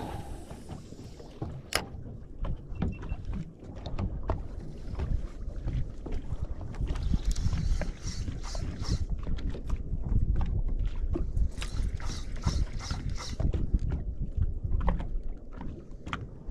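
Wind and water noise around a small boat, with a sharp click about two seconds in. Through the middle, a spinning reel is wound in quick spells, slow-rolling a soft-plastic lure back in.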